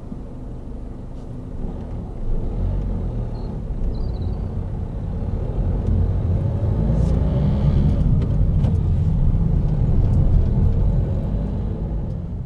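Car engine and road noise heard from inside the cabin as the car drives along, a low rumble that grows louder over the first several seconds and fades out at the very end.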